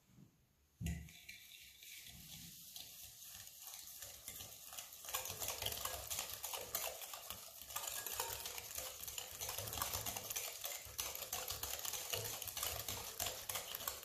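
Wire balloon whisk beating eggs and sugar in a glass bowl, the wires clicking and scraping against the glass in quick strokes. There is a single knock about a second in. The whisking starts lighter and becomes faster and louder about five seconds in.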